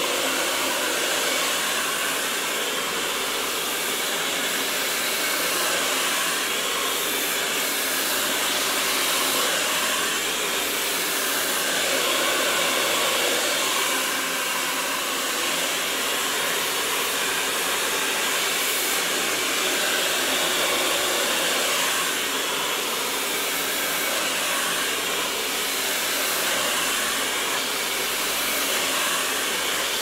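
Black Eagle hair dryer switched on at the start and running steadily, its air rushing as it is worked through long hair with a round brush.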